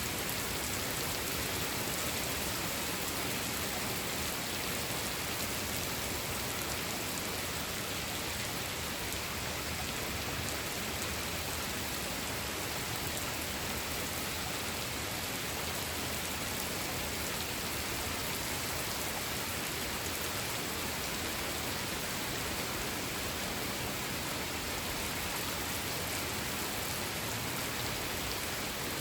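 Steady hiss of radio static with no signal.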